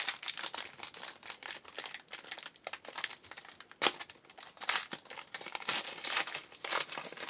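A trading-card pack wrapper being torn open and crinkled by hand, an irregular run of crackling and rustling with a sharp crackle about four seconds in.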